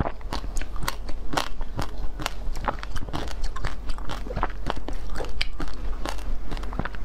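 Frozen basil-seed ice being bitten and chewed close to the microphone: a dense, irregular run of sharp crunches and crackles of breaking ice.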